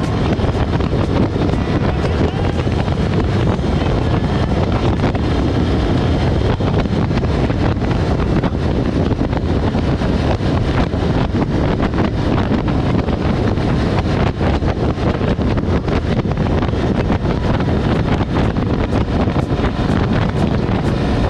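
Motorcycle riding at road speed, heard as steady wind rushing over a low-mounted microphone near the front wheel, with engine and tyre noise underneath.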